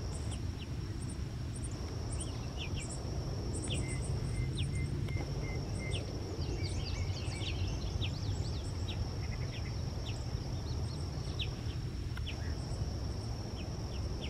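Many short, sharp chirps from a perched flock of small birds, over a steady high insect trill. A low rumble runs underneath.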